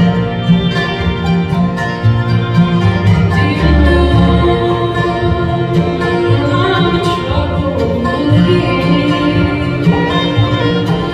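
Live bluegrass band playing an instrumental break, the fiddle carrying the lead over acoustic guitar, mandolin, banjo, dobro and upright bass.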